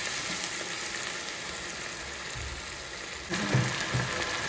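Vegetable pieces deep-frying in bubbling hot oil in a pan, a steady sizzle that turns louder and brighter a little over three seconds in.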